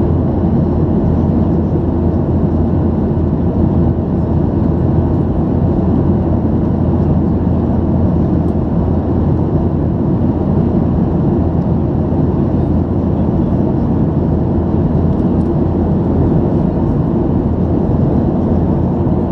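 Steady in-flight cabin noise of a Boeing 737-800: an even rush of engine drone and airflow, heard from inside the cabin.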